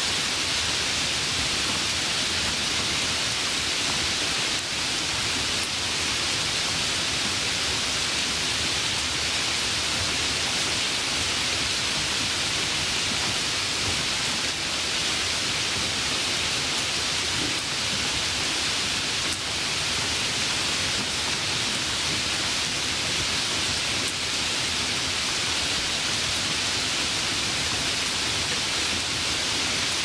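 Light rain falling steadily: an even, unbroken hiss.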